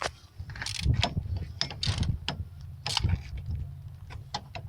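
Hand ratchet wrench clicking and scraping in short, irregular strokes as it turns a spark plug, with a steady low hum underneath.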